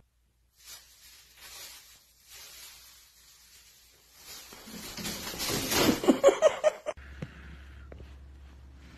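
Plastic bag rustling and crinkling as a cat pushes its head into it, faint at first, then growing into loud crackling that peaks about six seconds in and cuts off abruptly.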